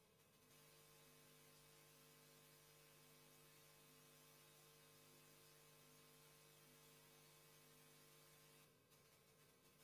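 Near silence with a faint, steady electrical mains hum that comes on about half a second in and cuts off abruptly near the end.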